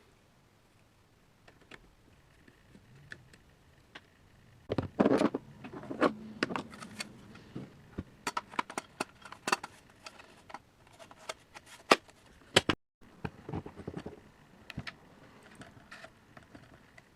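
Clicks, knocks and light metallic rattling of GSG-522 rifle parts being handled as the stock and its retaining screws are fitted, with a dense run of knocks about five seconds in and scattered clicks after.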